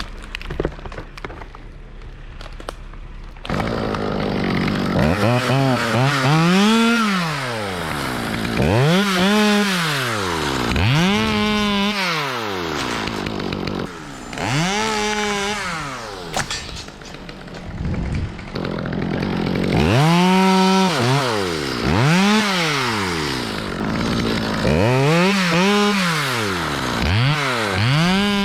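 Stihl 200T top-handle two-stroke chainsaw, coming in about three and a half seconds in and then revved again and again. Its pitch climbs, holds briefly and drops with each throttle squeeze, about nine times, every couple of seconds.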